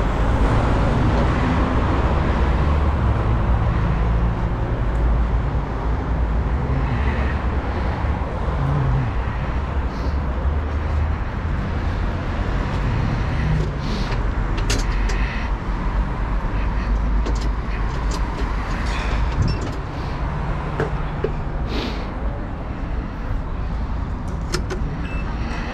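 Steady city street and traffic noise with a low rumble while riding a rental bicycle. This is followed by scattered sharp clicks and rattles from the bike as it is brought up to a docking rack.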